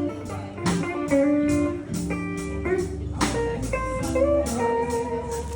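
Live blues band playing an instrumental passage between vocal lines: guitars with bass and drums.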